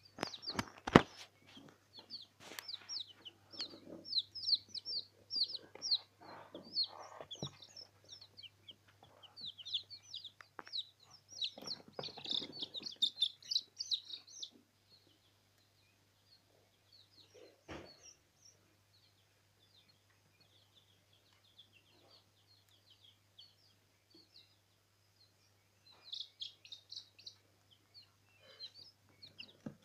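A brood of newly hatched chicks peeping: rapid runs of short, high, falling peeps. They thin out to a few calls in the middle and pick up again near the end. A few knocks and a low steady hum sound beneath them, the loudest knock about a second in.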